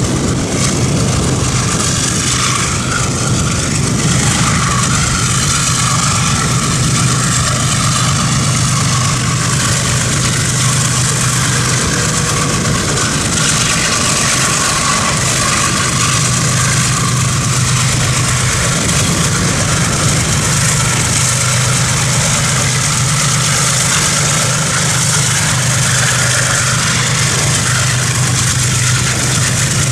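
Steady engine drone with road and wind noise, heard from a vehicle driving at an even speed.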